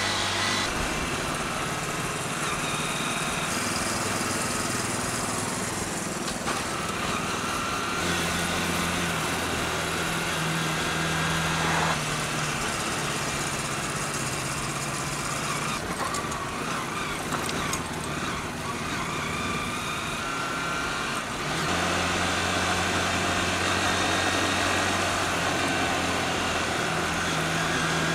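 Motorcycle engine running while riding, its pitch changing a few times with throttle and gears, under a steady rush of wind noise.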